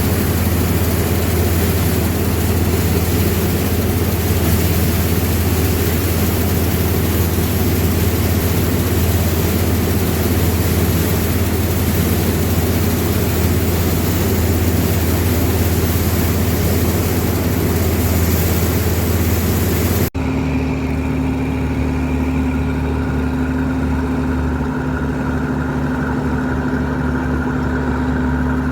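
Harvesting machine's engine running steadily under load, with a strong low hum and mechanical noise across the whole range. About two-thirds of the way through, the sound cuts abruptly to a steadier engine hum with a few clear tones and less hiss.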